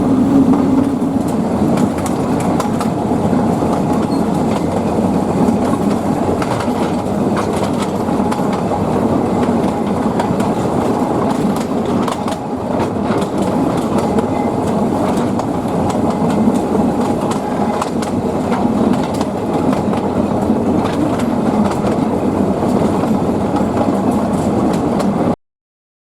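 Narrow-gauge train behind a TU2 diesel locomotive running along the line, its wheels clattering over the rails with a steady rumble. The sound cuts off suddenly near the end.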